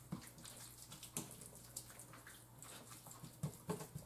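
Faint, irregular wet squelches and small taps of hands rubbing seasoning into raw chicken thighs.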